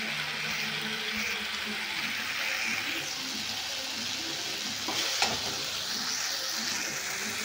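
Fried taro root (arbi) slices sizzling in spiced oil and masala in a kadhai while being stirred and turned with a perforated metal spatula. A steady hiss, with one sharp knock about five seconds in.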